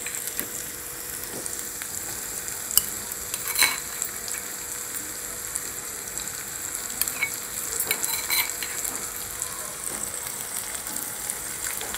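Minced mutton sizzling in hot oil as it is added to a pan of fried onion and tomato masala and stirred, with a steady frying hiss. A spatula knocks and scrapes against the pan a few times.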